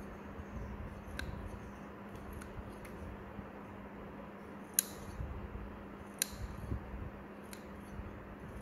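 Heavy nail nippers snipping through a thick, fungus-thickened toenail: a series of sharp clicks, about five, the loudest two about five and six seconds in.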